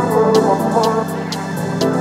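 Background electronic music with a steady beat and sustained synth chords.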